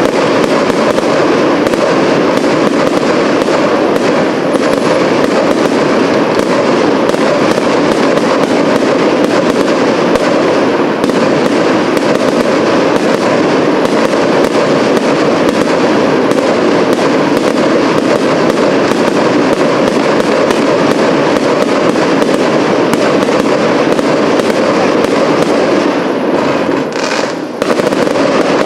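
Fireworks display: aerial shells bursting and crackling so thickly that the bangs overlap into one loud, continuous din, which dips briefly near the end.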